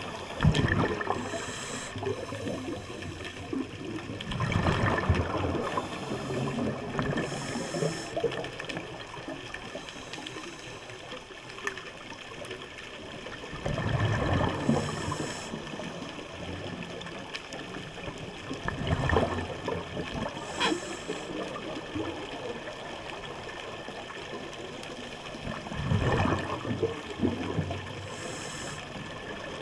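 Scuba diver breathing through a regulator underwater: a gurgling rush of exhaled bubbles comes about every five to seven seconds, with short hissing inhalations from the regulator in between.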